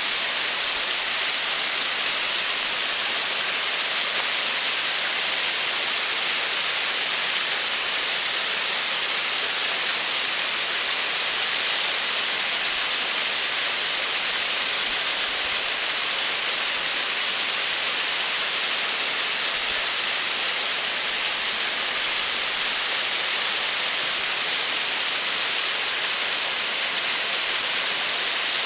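Double-cascade waterfall: water spilling over rocks, a steady, even rush with most of its energy in the hiss.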